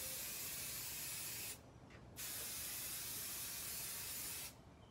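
Aerosol can of quilt-basting spray adhesive spraying in long, steady hisses, with a short break about a second and a half in and another stop near the end.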